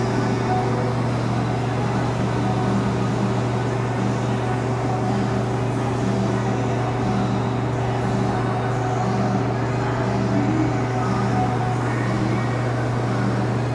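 Steady machine hum from an electric motor: a constant low drone at one unchanging pitch, with an even rush of air noise over it.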